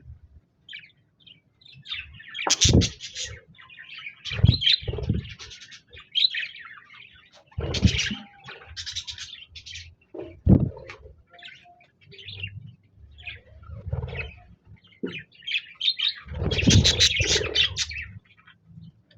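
Pet budgerigars chirping and warbling in quick, irregular bursts. A few loud low thumps are mixed in.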